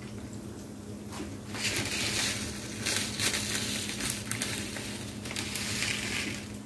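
Sliced onions, green chillies and whole cumin seeds frying in hot oil in a non-stick frying pan: a hissing sizzle full of small crackles, growing louder about a second and a half in and easing a little just before the end.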